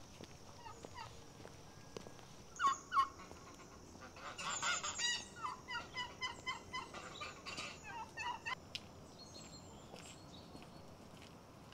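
Domestic turkeys gobbling: two calls about two and a half seconds in, then a longer run of rapid, rattling gobbles from about four to eight and a half seconds.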